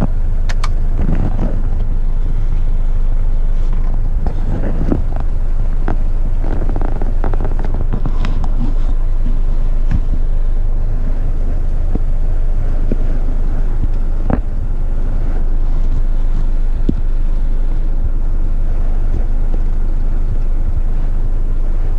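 Diesel engine of an eight-wheeler twin-steer garbage truck running steadily as the truck drives, heard from inside the cab, with a few light knocks and rattles.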